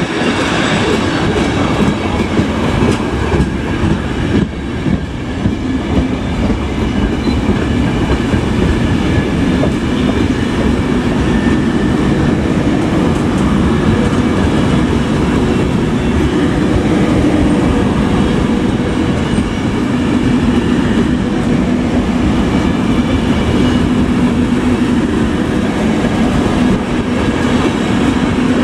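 A long rake of Trenitalia passenger coaches rolling past: a steady noise of steel wheels running on the rails, with clacking over the rail joints.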